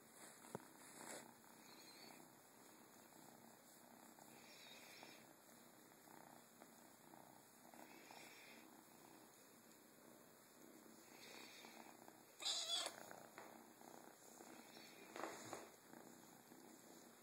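Young black kitten purring softly, close up. A brief louder noise breaks in about twelve and a half seconds in, and a smaller one a few seconds later.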